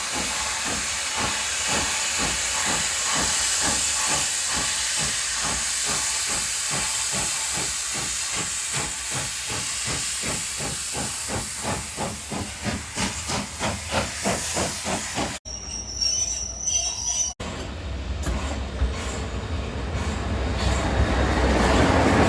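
Steam locomotive venting a loud steady hiss of steam, with exhaust beats of about four a second growing clearer as it works. After an abrupt cut comes a brief high-pitched ringing tone, then a low rumble that builds steadily louder.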